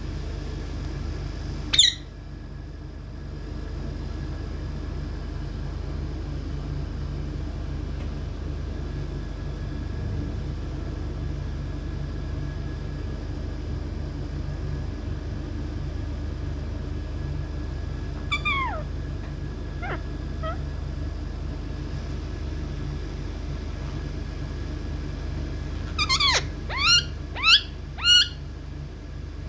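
Indian ringneck parrot giving short, sharp screeches that drop quickly in pitch: a loud one about two seconds in, a few fainter ones past the middle, and a quick run of four near the end, over a steady low hum.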